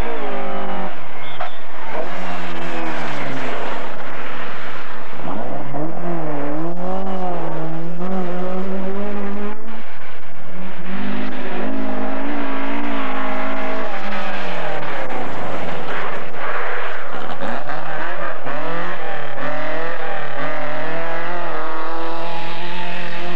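Rally car engines revving hard on a gravel forest stage, the pitch climbing and dropping again and again with gear changes and lifts of the throttle, with a deep fall in pitch about two-thirds of the way through. One of the cars is a Mk2 Ford Escort.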